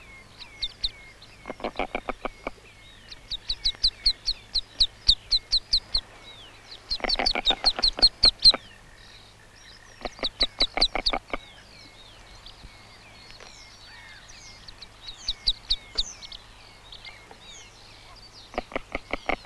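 Merganser ducklings peeping in quick runs of high, thin notes as they leave a tree-hole nest. Several short bursts of a lower, rapidly pulsed call break in between the runs.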